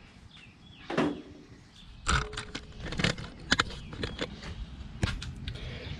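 Handling noise: a louder scrape or knock about a second in, then a run of irregular clicks and clatters, as of cooking gear being moved around. Faint bird chirps can be heard near the start.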